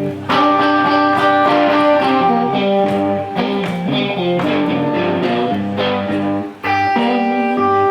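Blues guitar playing between sung lines: plucked notes and chords with sustained ringing notes, dropping out briefly about six and a half seconds in before picking up again.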